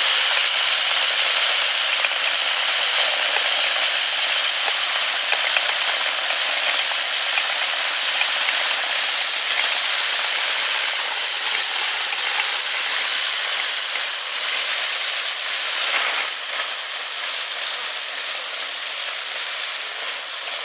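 Spinning brush of a 7¼-inch gauge rail-cleaning trolley scrubbing along the rails: a steady hissing scrub that slowly gets quieter over the last few seconds.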